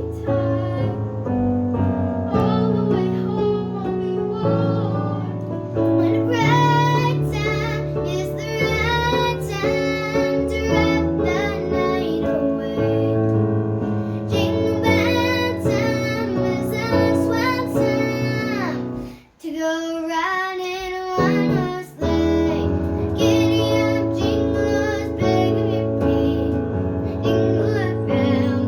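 A child singing a seasonal song over a keyboard-style accompaniment. The accompaniment plays alone for the first few seconds before the voice comes in. About two-thirds of the way through, the accompaniment drops out briefly and the voice sings on alone.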